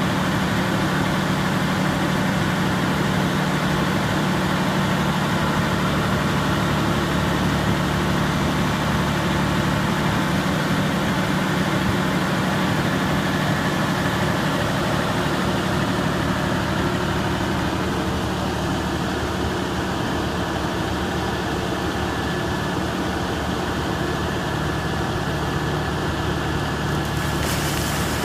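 Volvo EC460CL crawler excavator's diesel engine running steadily with a deep hum. The note eases slightly about two-thirds of the way through, and a short hiss comes near the end.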